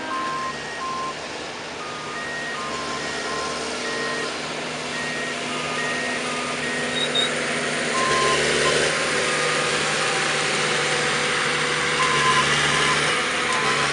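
A small self-propelled railroad maintenance-of-way track machine runs along the rails. Its engine and running noise grows loudest as it passes, in the second half. Short electronic warning beeps repeat throughout, in two pitches.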